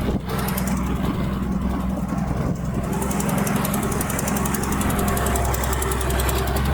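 Diesel engine of a bulldozer running steadily under load, with a dense, rapid clatter over the low engine hum.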